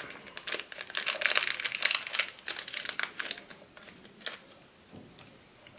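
Small clear plastic accessories bag crinkling and crackling as it is handled and opened, the crinkling dense for about three seconds and then thinning out to a few light clicks and taps of small parts on the work mat.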